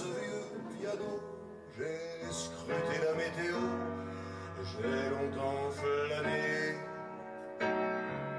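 Background music carried by a plucked guitar, with held notes and new phrases coming in every second or two.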